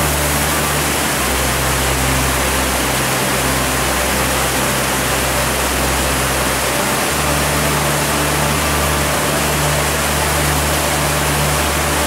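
Loud, steady rush of water from a rain-swollen mountain stream and waterfall, loud enough to drown out a voice. A low rumble underneath changes level every few seconds.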